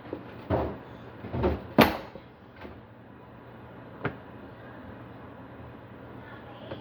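A few knocks and thuds of kitchen handling, the loudest and sharpest about two seconds in, then a single sharp click about four seconds in.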